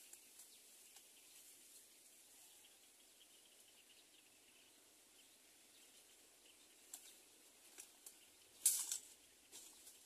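Faint rustling and a few short clicks in dry leaves, with one louder rustle lasting about half a second, shortly before the end.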